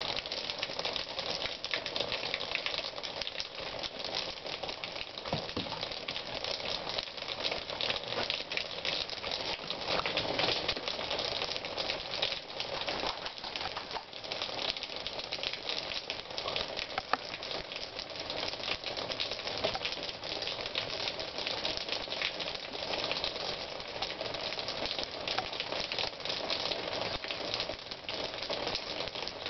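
Steady rain pattering on a wet wooden deck, a dense run of small drop hits.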